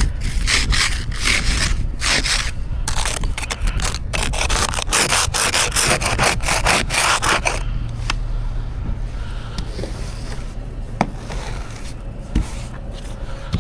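Snow being brushed and scraped off a car in quick repeated strokes; about halfway through the strokes stop and only a few light knocks are heard.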